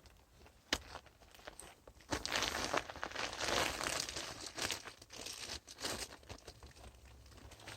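Duct insulation wrap crinkling and rustling as it is handled and cinched with a zip tie, with a sharp click just under a second in and the busiest crinkling in the middle.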